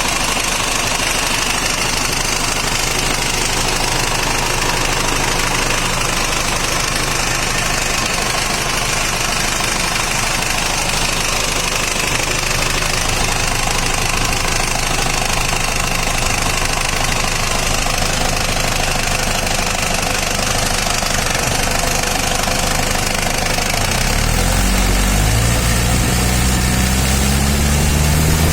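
1997 Isuzu Panther's 2.5-litre four-cylinder diesel engine idling steadily, then revved near the end, its pitch rising as it gets louder.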